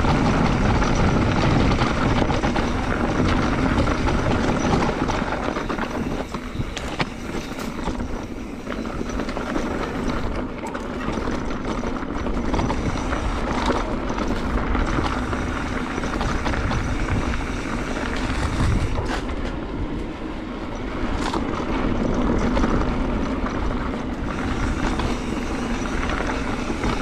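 Mountain bike rolling along a rough dirt trail: a steady rushing noise from the tyres and the ride, broken by frequent rattles and knocks from the bike over bumps.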